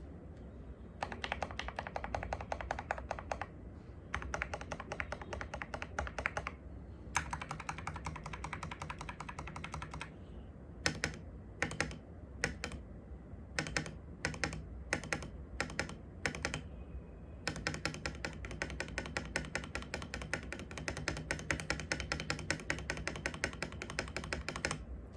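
Typing on an Akko 3098 ASA mechanical keyboard with stock switches and keycaps and lubed, holee-modded stabilizers: three quick bursts of fast keystrokes, then a few seconds of separate single key presses, then a long fast run of typing.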